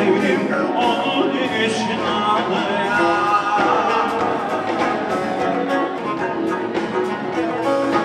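Live band music with a singer singing into a microphone, backed by guitar and keyboard, the voice wavering and held on long notes.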